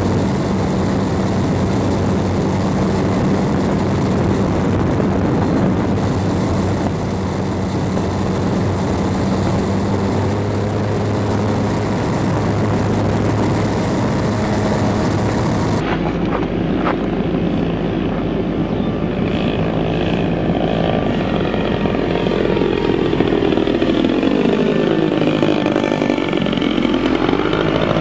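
Small propeller plane's engine running steadily, heard from the plane's onboard camera with wind noise. About halfway through, this gives way to a small propeller plane heard from the ground as it flies low past, its engine note sweeping in pitch as it goes by.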